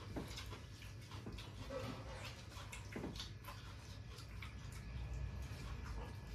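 People eating with their hands from steel plates: chewing and lip-smacking, with scattered light clicks.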